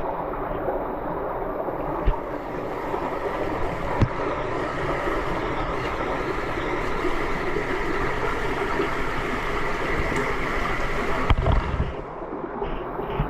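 Water sloshing and splashing as a caver wades and swims through a flooded cave passage, with a few knocks; the water noise drops away about twelve seconds in.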